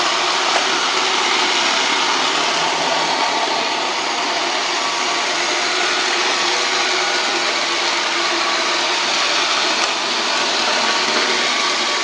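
Robot vacuum cleaner running: a steady whirring hiss with a faint motor hum under it.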